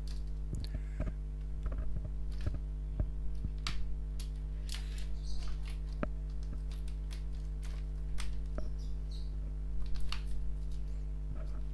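Steady electrical mains hum, with scattered light clicks and taps as a washing-machine control board and its tester wires are handled and moved on the bench.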